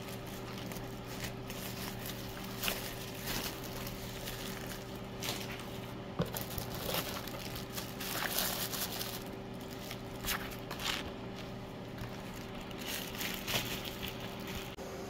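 Thin plastic bags crinkling and rustling as cooked sticky rice is handled and packed into them, with irregular small crackles throughout. A steady low hum runs underneath.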